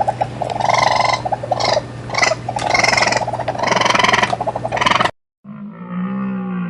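Farm animals calling: a dense run of overlapping calls that cuts off abruptly about five seconds in, followed by a lower, drawn-out pitched call.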